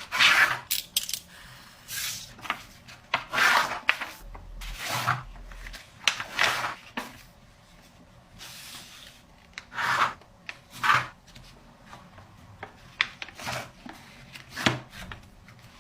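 Paper being folded and creased by hand: a series of irregular rustling, rubbing strokes with short pauses between them.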